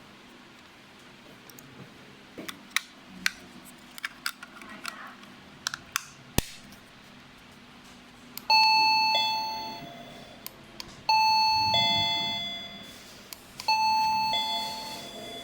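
Plug-in wireless doorbell chiming a two-note ding-dong, a higher tone then a lower one, three times, each ringing out and fading. Before the chimes come a series of small sharp clicks and taps.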